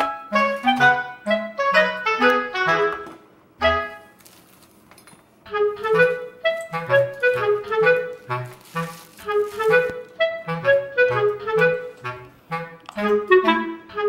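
Background music: a light, bouncy woodwind melody of short, detached notes over a simple bass line, pausing briefly about four seconds in before starting up again.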